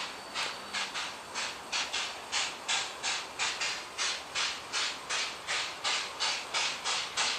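PKP class Pt47 2-8-2 steam locomotive working hard under load with a passenger train, its exhaust beating in a steady rhythm of about three chuffs a second, growing a little louder as it approaches.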